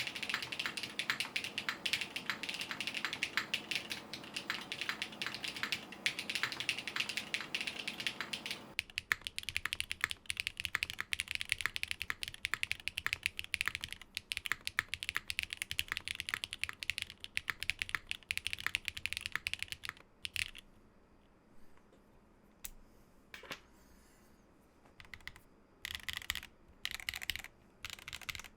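Typing on a Geonworks F1-722 mechanical keyboard with an aluminium half plate, lubed Geon Black switches and GMK Amethyst keycaps: a fast, steady run of keystrokes. The typing stops about two-thirds of the way through, and a few short bursts of keystrokes follow near the end.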